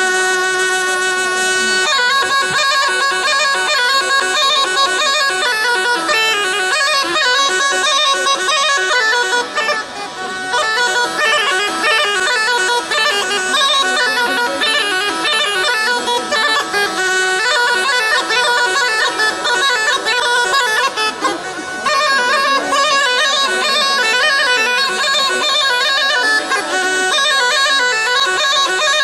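Romanian cimpoi (folk bagpipe) played solo: a steady drone under a quickly changing melody on the chanter.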